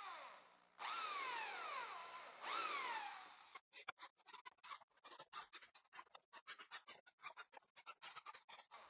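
Electric drill running in two short bursts while drilling countersunk pilot holes in pine, the motor's pitch falling as it winds down after each one. A string of light, irregular clicks follows.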